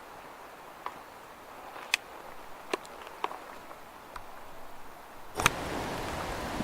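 Single raindrops ticking one at a time, a few sharp drips over several seconds, then about five seconds in the sound suddenly changes to a steady hiss of rain falling.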